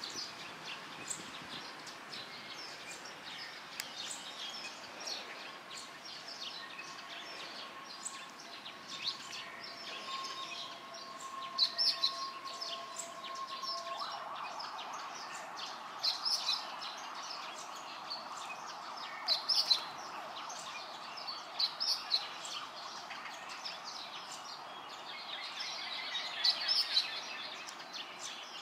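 Small birds chirping in short, repeated bursts, loudest in a few clusters. Beneath them is a faint steady tone through the first half, which gives way about halfway through to a steady background hiss.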